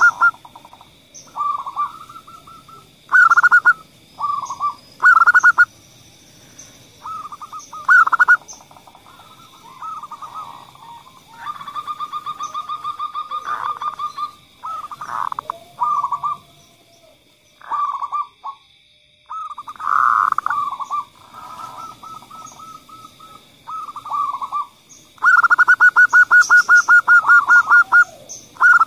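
Zebra dove (perkutut) cooing in a string of short phrases with gaps between them. Near the end comes a long fast run of quickly repeated notes.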